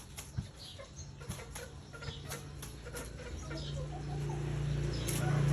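Chicken sounds: scattered light clicks and taps with short, faint chirping calls, and a low steady hum that grows louder in the last couple of seconds.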